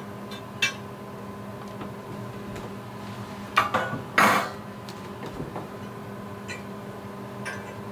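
Baking pans clinking and knocking as they are handled at the oven: a short knock under a second in, then a louder clatter around four seconds in, over a steady low hum.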